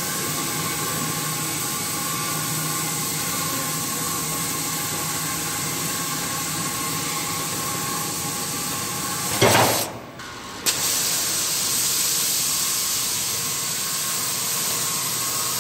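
A CNC cutting torch hissing steadily as it burns a circle through thick steel plate. About nine and a half seconds in, a short loud burst, then the hiss drops away for about a second before returning.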